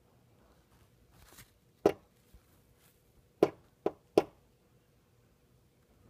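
An American robin's beak pecking the window glass in four sharp taps, spaced irregularly with the last two close together, and a soft rustle just before the first. It is territorial pecking in mating season.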